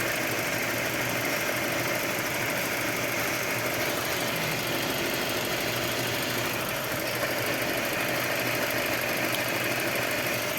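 Mercedes C200 CGI four-cylinder direct-injection engine idling steadily while misfiring: cylinder 4's ignition coil is getting no firing signal from the engine control module, so that cylinder is dead.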